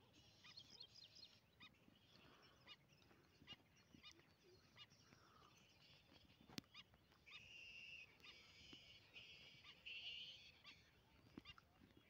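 Faint bird calls: many short chirps, thickening into a busier stretch of calling past the middle, with one sharp click a little past halfway.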